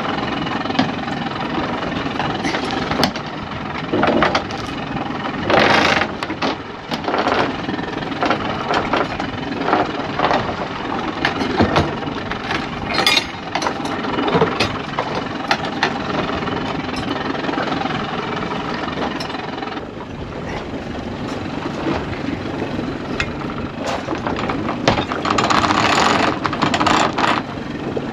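Boat engine running steadily, with irregular knocks and clatters over it and several louder bursts of noise.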